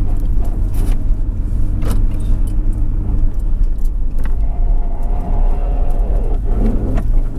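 A car or truck driving along a dirt road, heard from inside the cab: a steady engine and tyre rumble, with occasional short knocks and rattles as it goes over bumps.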